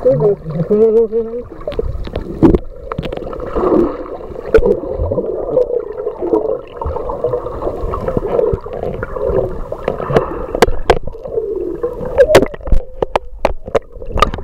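Sound recorded underwater by a camera in the sea: muffled water noise with gurgling and wavering hum-like tones, and sharp clicks and pops that come more often in the second half.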